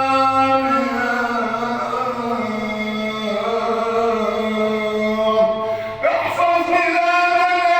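A man's voice chanting an Islamic supplication (du'a) in long, held melodic notes, stepping down in pitch over the first few seconds, then breaking off briefly about six seconds in and rising to a new held note.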